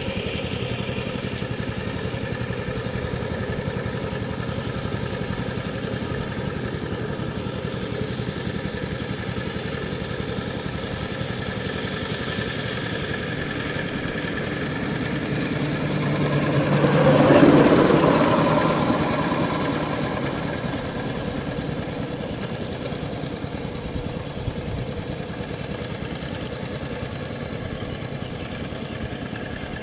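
Single-cylinder diesel engine of a two-wheel power tiller running steadily under load as it drags a leveling board through paddy mud. It swells louder for a few seconds just past halfway, then eases back to its steady note.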